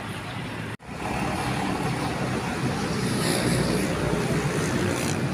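Diesel engine of a large box truck running steadily as it turns and backs up, with a low hum under road traffic noise. The sound cuts out for an instant a little under a second in.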